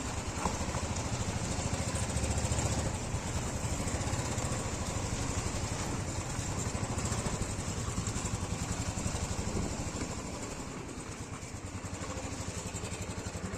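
Royal Enfield Bullet single-cylinder engine running under way at a steady riding pace, its fast, even thump heard from the rider's seat. It drops a little in level about ten seconds in.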